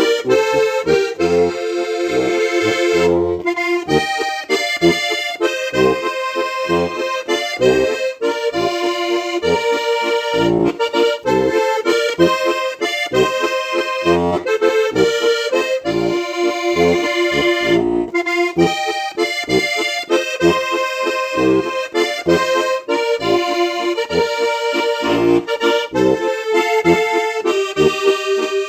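Styrian button accordion (steirische harmonika) playing a lively Slovenian folk tune: chorded melody over a steadily pulsing bass.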